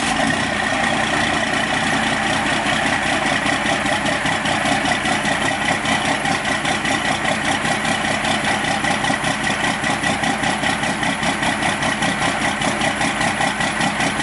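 First-generation Cummins 5.9-litre 12-valve inline-six turbo-diesel, fitted with a big cam, idling cold seconds after a cold start, with a steady, even pulsing beat.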